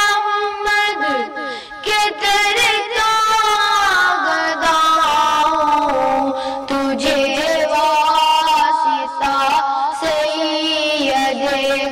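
A boy singing an Urdu naat in a slow melody, drawing out long, wavering held notes.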